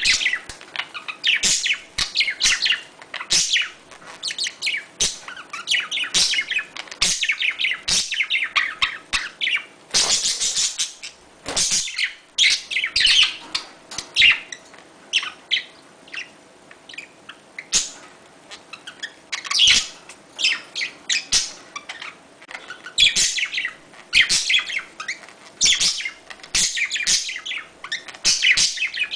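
A pair of budgerigars chattering during mating: rapid, high warbling chirps in bursts of a second or two, with short pauses between. About ten seconds in there is one harsher, noisier burst.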